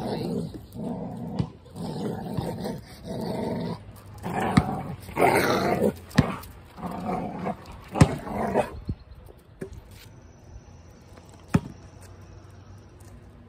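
Two dogs growling at each other as they play-fight, a run of growls lasting about nine seconds. It then goes quieter, with a few sharp clicks.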